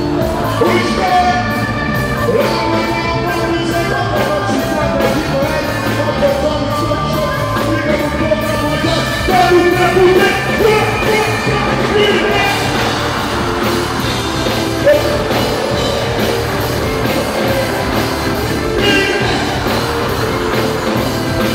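Loud live rock-style music with a singer over a steady beat.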